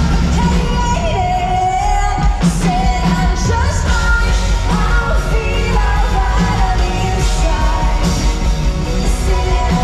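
Live rock band playing loud, with guitars, bass and drums and a woman singing lead, heard from within the audience.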